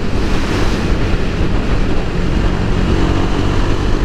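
KTM 390 Duke's single-cylinder engine running steadily at highway speed in a high gear, below the 6,000 rpm where it starts to pull, buried under heavy wind rush on the microphone.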